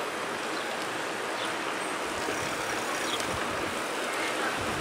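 Steady rushing wind and road noise from moving along a paved road, with wind buffeting the microphone in low, uneven pulses.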